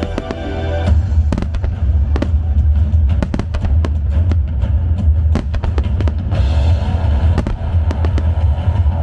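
Starmine fireworks barrage: a rapid run of sharp bangs and cracks starting about a second in, over a heavy low rumble and music played over loudspeakers.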